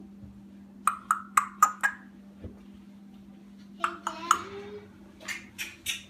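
Congo African grey parrot making a quick run of short, sharp clicks and beeps, a short mumbled call about four seconds in, then more clicks near the end.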